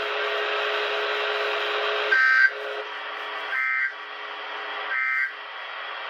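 Radio receiver hiss with a faint steady hum, cut by three short two-tone digital data bursts about 1.4 seconds apart: the EAS end-of-message (EOM) signal that closes a Required Weekly Test broadcast.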